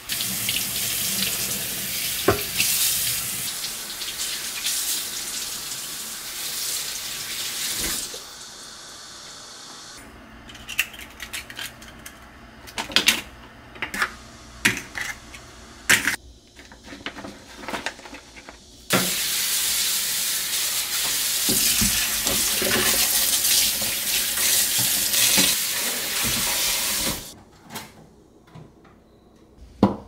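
Kitchen tap running into a stainless steel sink for several seconds, then a stretch of scattered knocks and clatter as things are handled in the sink, then the water running again until it is turned off near the end.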